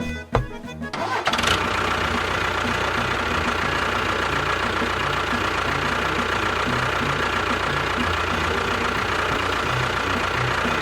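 A small motor starts about a second in and runs steadily at one speed, with a faint whine, then cuts off at the end. A music beat continues underneath.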